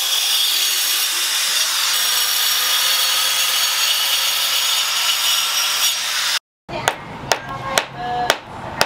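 Electric angle grinder with a cutting disc sawing into a sandstone block, a steady grinding hiss with a whine in it. It stops abruptly about six seconds in, and then a hammer strikes the stone sharply about five times in quick succession to break it apart.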